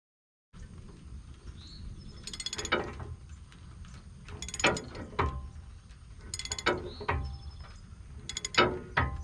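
Socket ratchet wrench clicking in four quick runs about two seconds apart, as the nut on a rotary cutter's blade bolt is run down tight by hand.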